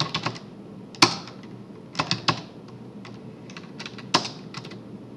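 Typing on a computer keyboard in short, irregular runs of keystrokes. The loudest is a single hard key press about a second in.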